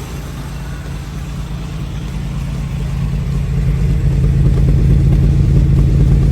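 1995 Toyota 4Runner's 3.0 V6 running steadily at idle through a MagnaFlow exhaust, the note even in pitch and growing louder about three seconds in.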